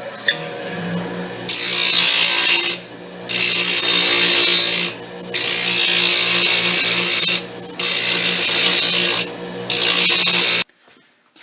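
Bench grinder with a white aluminum oxide wheel running with a steady motor hum while a steel chisel edge is passed back and forth across the wheel. Five loud grinding passes, each a second or two long, grind the nicks out of the chisel's edge. The sound cuts off suddenly near the end.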